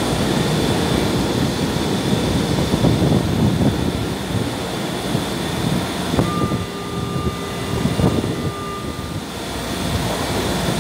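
São Paulo Metro Line 1 subway train rumbling alongside the underground platform. About six seconds in, a steady electronic warning tone from the train sounds for about three seconds.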